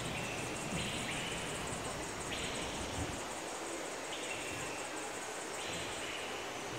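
Insects calling in a dense tropical planting: a continuous high, pulsing buzz, and over it a trill that repeats about every one and a half to two seconds, each one dropping a step in pitch partway through.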